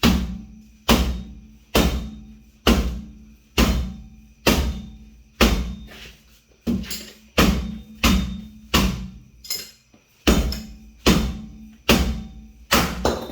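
Hammer blows on a car's rear hub bearing assembly, about one a second, each a sharp metallic hit with a short ring, knocking the unbolted hub loose from the knuckle.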